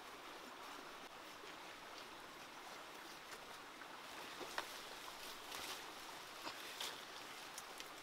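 Steady running water of a stream, with scattered crackles and snaps from about halfway on as taro stalks and leaves are gripped and pulled.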